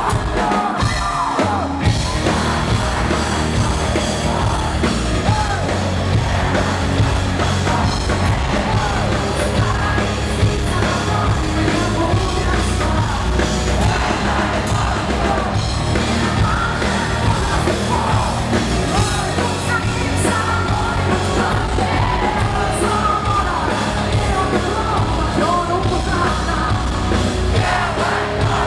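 Rock band playing live at full volume: electric guitars, bass guitar and drums, with the singer singing and yelling over them.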